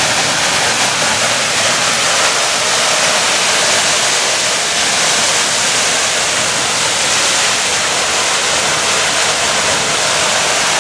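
Torrential rain and rushing water during a flash flood: a loud, steady, unbroken rush.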